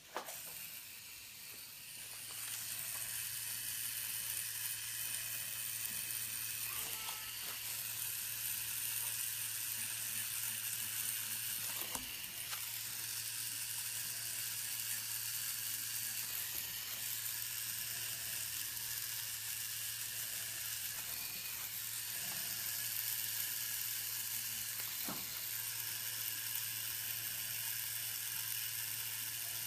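Tattoo machine with a cartridge needle running steadily as it works ink into the skin: a continuous low buzz with a hiss over it, coming up to full level about two seconds in.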